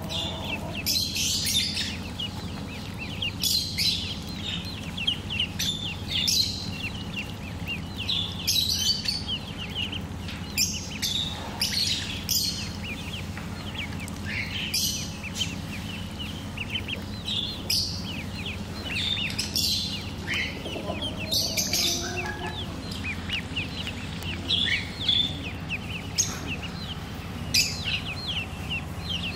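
Ducklings peeping: short high calls in quick bunches every second or two, over a steady low hum.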